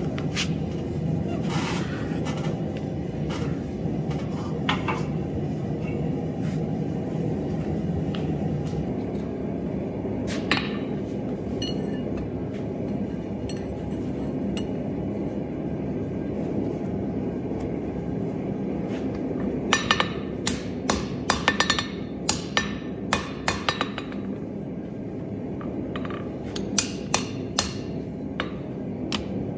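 Hand hammer striking a hot square steel bar on an anvil: a quick run of sharp, ringing metal blows about two-thirds of the way in and another run near the end. Earlier, a few scattered metallic clinks as the bar is worked in a vise, all over a steady low rumble.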